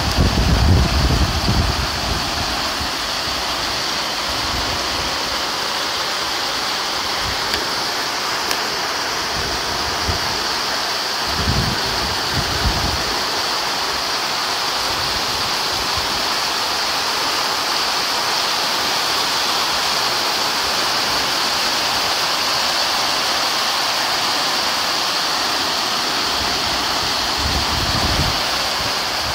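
Heavy rain pouring down steadily on a courtyard's pavement and plants, a loud even hiss. A few low rumbles cut in briefly: at the start, about eleven seconds in, and near the end.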